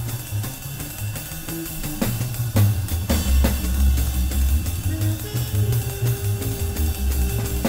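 Small-band 1960s jazz from a film score: drum kit and plucked double bass drive a steady pulse with cymbal and drum strokes, and a long held note comes in about five seconds in.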